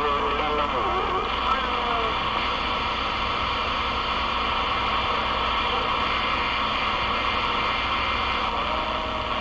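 Galaxy DX33HML CB radio receiving: a steady hiss of band static with faint, warbly voices of distant stations coming through near the start and again near the end.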